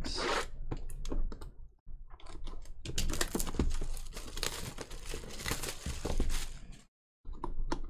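Cellophane shrink-wrap being torn and crumpled off a sealed box of trading cards, a busy crinkling that stops suddenly near the end.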